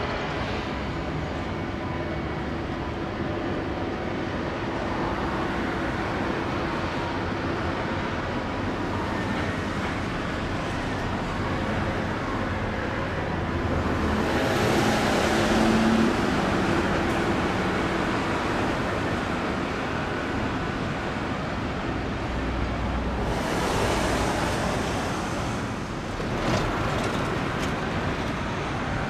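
Steady road traffic noise, with vehicles swelling past about halfway through and again near the end.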